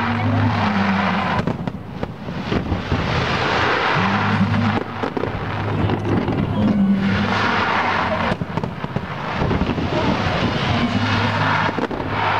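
Aerial fireworks shells bursting and crackling in rapid succession, over music played through loudspeakers that holds steady low notes; the bursts come in swelling waves.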